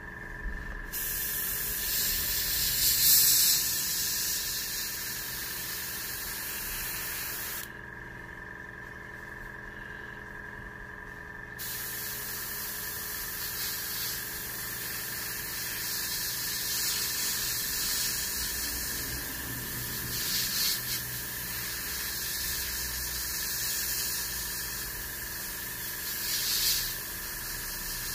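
Gravity-feed airbrush spraying paint with a steady hiss of air. It stops for about four seconds after the first stretch, then sprays again, with a few louder spurts. The air pressure has been turned down slightly from too high.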